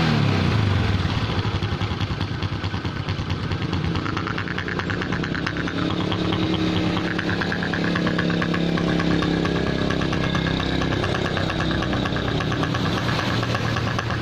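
Honda Supra X 125 single-cylinder four-stroke engine idling, its note shifting a few seconds in and then holding steady. The engine has a rough 'ngorok' (snoring) idle from too little intake vacuum, caused by a breather hose cracked at its clamp.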